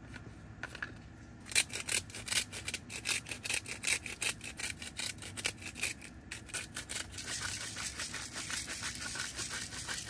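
Handheld salt and pepper grinder being twisted over lobster tails: a quick run of gritty clicks, about four or five a second, starting a second and a half in and running together into steady grinding near the end.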